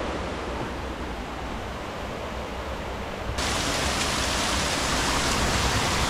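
Steady rush of flowing water. About three and a half seconds in it jumps to a louder, brighter rush.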